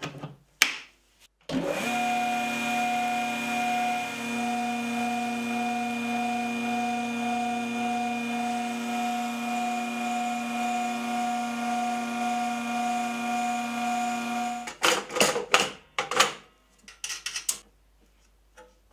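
A plug clicks into its socket, then the Kity 636 jointer/planer's electric motor runs its cutter head through a flat belt, a steady hum with a faint regular pulse about twice a second: a test run of the new belt drive, knives not yet fitted. The hum stops suddenly about fifteen seconds in, followed by a few knocks and clatters.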